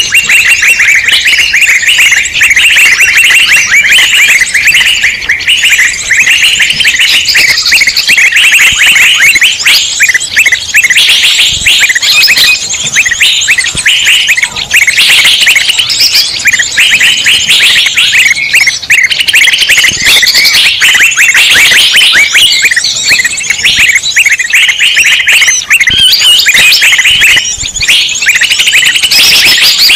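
A loud, dense chorus of many small songbirds chirping and chattering at once, with fast overlapping high trills that never let up. This is a bird-luring (pikat) recording meant to draw in wild birds.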